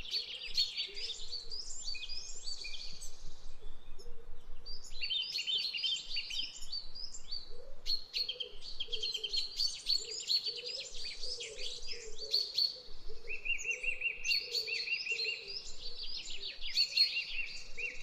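Small birds chirping and twittering in quick, busy runs, with a short lull about four seconds in.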